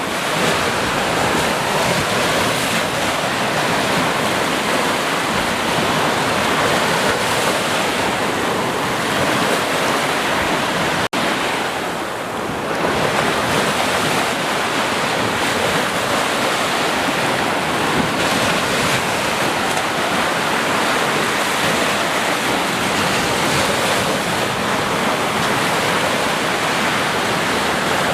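Sea surf: a steady rush of waves breaking and washing on the shore. The sound cuts out for an instant about eleven seconds in, then returns slightly softer for a second before resuming.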